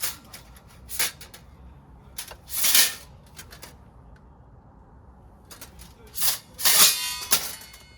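Camping gear or dishes being handled: a few sharp knocks and short clatters, the last one with a brief ringing clink near the end.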